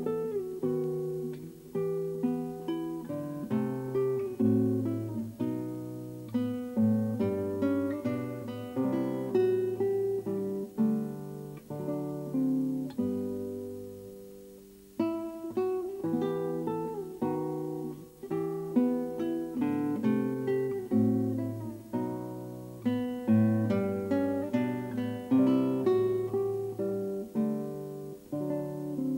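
Background music on a plucked acoustic guitar, notes and chords each ringing and fading. The playing dies away about halfway through and starts again a moment later.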